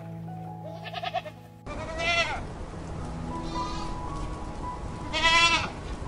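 Goats bleating, several separate wavering calls with a loud one near the end, over soft background music.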